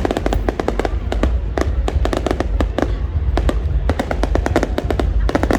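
Fireworks crackling: a dense run of many sharp pops, several a second, over a continuous deep rumble.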